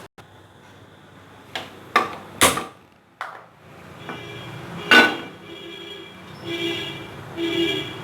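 A kitchen stove being switched on: a few sharp clicks and knocks, then from about four seconds in the burner's steady running noise, with another sharp knock and two short ringing pulses near the end.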